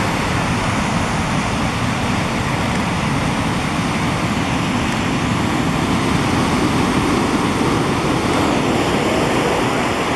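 Large ocean waves breaking close to shore: a steady, dense rush of surf noise.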